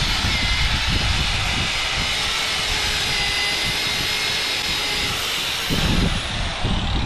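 MIG (wire-feed) welder arc crackling and sizzling steadily as a bead is laid on the ATV's metal frame.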